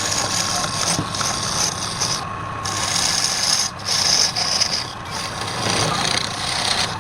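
Wood lathe running while a turning tool cuts the spinning wood: a steady low motor hum under a high, hissing scrape that breaks off briefly a few times.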